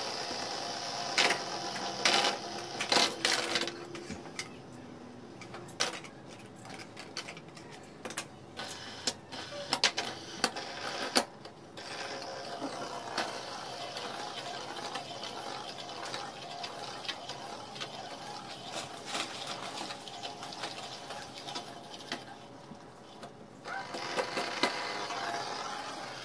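Light-up fidget spinners whirring as they spin flat on a wooden tabletop, with clicks and knocks as fingers flick and handle them. The clicking is busiest in the first half, then a steady whirr runs and dies away, starting up again briefly near the end.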